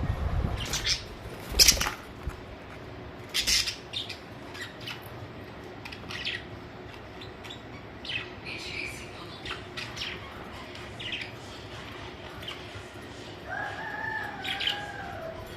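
Pet budgerigars chirping, with short sharp calls scattered throughout. There is a loud flurry of wing flapping in the first two seconds, and a longer, arching warble about thirteen seconds in.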